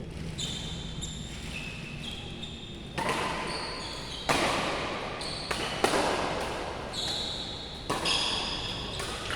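Badminton rally in an echoing indoor hall: rackets hit the shuttlecock with several sharp smacks about a second apart, between squeaks of players' shoes on the court floor.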